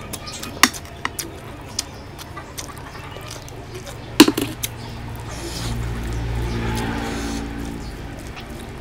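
Wet, close-up eating sounds from a curry-and-rice meal, with sharp smacking clicks, the loudest about four seconds in followed by a few quick ones. A low rumble swells in the second half and fades.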